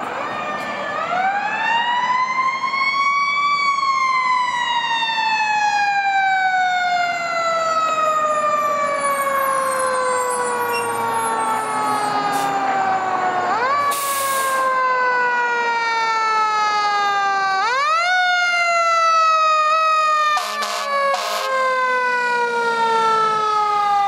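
Federal Q mechanical siren on a fire engine, winding up to a high wail over about three seconds, then coasting slowly down in pitch. It is spun up again twice, about halfway and about three-quarters through, each time rising quickly and falling away slowly.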